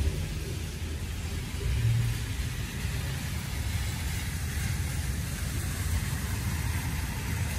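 Steady low outdoor background rumble, swelling briefly about two seconds in.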